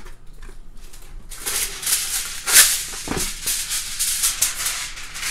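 Aluminium foil crinkling and rustling as a sheet is handled and pressed over the edge of a metal baking pan, starting about a second in.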